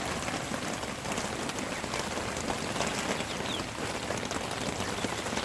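Steady rain falling on the coop's tarp roof, with many individual drops ticking on it.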